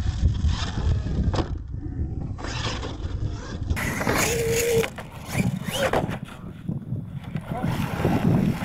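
Radio-controlled monster trucks running on a dirt course: motor whine and rumble, with a short steady whine and some rising and falling pitch in the second half.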